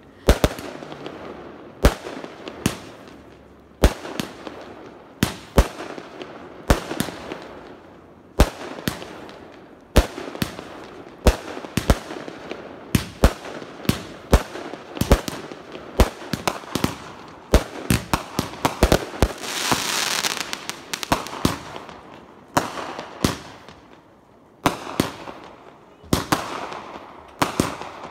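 Consumer aerial fireworks launching and bursting in quick succession: many sharp bangs, some in rapid clusters. About twenty seconds in there is a short stretch of dense hiss.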